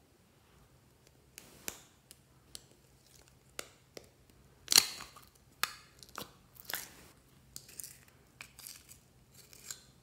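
Plastic packaging crackling and clicking as a yellow plastic slime container is handled and a clear plastic seal on it is peeled open: a string of short crackles, the loudest about five seconds in.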